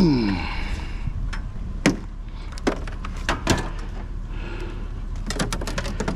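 Scattered metal clanks and knocks of scrap being handled and tossed, a few single hits and then a quick cluster near the end, with a brief falling squeak at the very start.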